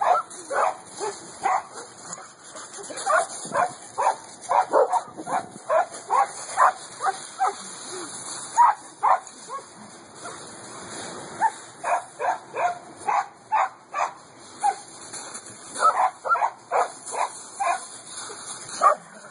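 Dog barking in runs of short, quick barks, two or three a second, broken by brief pauses.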